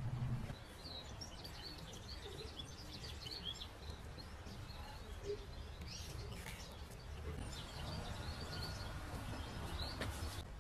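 Small birds chirping in many short calls over a low, steady background rumble of outdoor noise. A low hum cuts off about half a second in.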